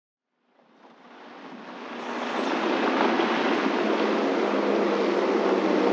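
Engine running steadily, fading in over the first two seconds or so, with an even hum.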